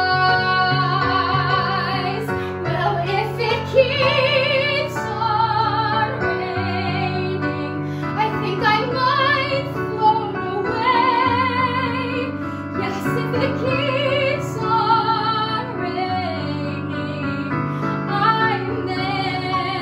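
A woman singing a musical-theatre song, holding notes with vibrato, over an instrumental accompaniment.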